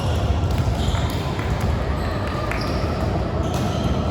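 Indoor gym sound during a volleyball match: a steady din of voices and movement, with a few sharp knocks and several short high squeaks scattered through it.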